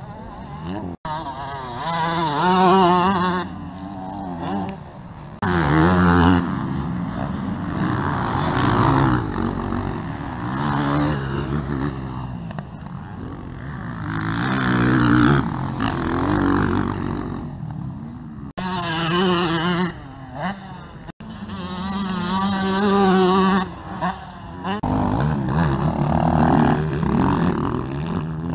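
Motocross bikes riding past on a dirt track, their engines revving up and down in pitch in repeated swells as the riders come over the jumps and change gear. The sound drops out abruptly a few times.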